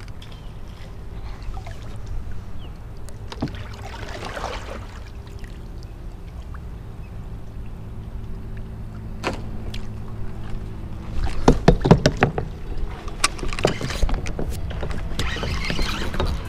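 Clicks and knocks of a spinning rod and reel being handled in a kayak, over a steady low hum; the clicking comes thick and fast about three-quarters of the way through, followed by a hissing rush near the end.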